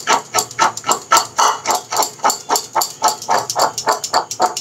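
Boiled chickpeas being tossed in a metal bowl to coat them in cornflour, rattling against the metal in quick, even shakes, about six a second.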